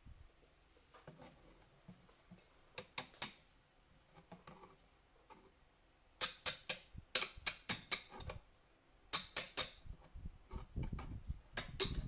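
Hammer tapping a stone mason's chisel against a melamine chipboard cabinet panel, in quick runs of sharp taps: a few, then a longer run, then two shorter runs near the end.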